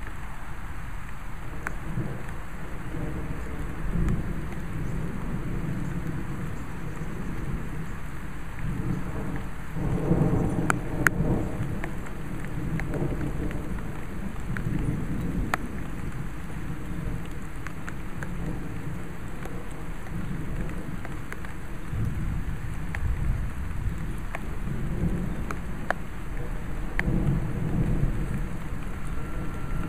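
Thunder rolling in low rumbles over a steady hiss of rain, the strongest rumble about a third of the way in and another near the end, with a few sharp ticks scattered through.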